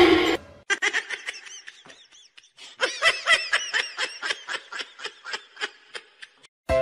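A short loud burst of noise at the very start, then a person laughing in rapid short snickers, in two runs with a brief pause between them.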